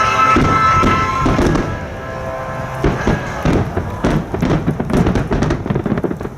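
Fireworks finale: a rapid barrage of shell bursts and crackling reports, many bangs a second in the second half. Held notes of music fade out during the first second and a half.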